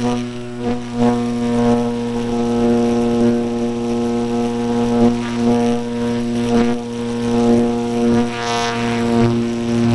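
Electric motor and propeller of an E-flite Apprentice RC trainer plane, heard from an onboard camera in flight: a steady droning hum of even pitch with wind rushing past the microphone.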